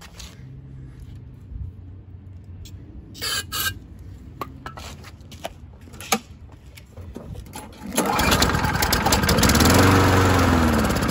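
A few clicks and knocks, then about eight seconds in the mower's Tecumseh 6.5 HP OHV engine is pull-started and fires on a squirt of priming gas, speeding up and then slowing as it starts to die away. It runs only on the primed fuel: the carburetor is still not feeding it.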